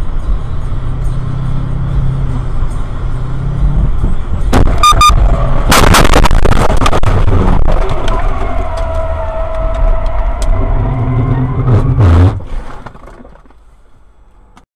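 A car crashing at highway speed, heard from the car's own dashcam: steady road and tyre noise, then sudden impacts about four and a half seconds in with a short electronic beep, followed by loud crashing and scraping as the car leaves the road. A wavering whine runs under the scraping for a few seconds, a last heavy hit comes after about twelve seconds, and the noise then dies away.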